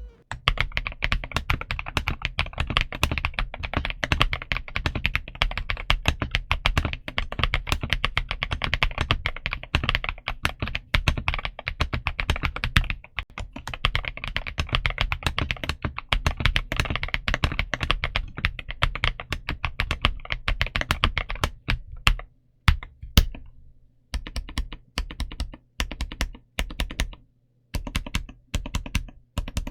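Typing on the stock Redragon K707 Pro TKL mechanical keyboard: rapid, continuous keystroke clicks for about twenty seconds. After that the typing breaks into short bursts of keystrokes separated by brief pauses.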